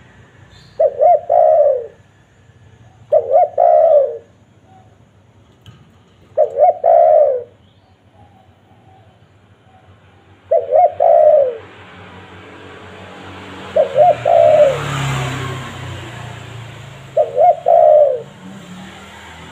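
Spotted dove (tekukur) cooing: six phrases a few seconds apart, each a couple of short coos run into a longer drawn-out note. Midway a rushing hiss swells and fades behind the calls.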